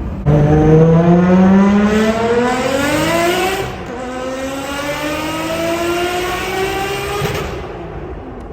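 Turbocharged RB25 straight-six in a Nissan S13, straight-piped through a 3-inch Tomei titanium exhaust, pulling hard: the revs climb steeply, drop at an upshift a little over three seconds in, then climb again more slowly before easing off near the end.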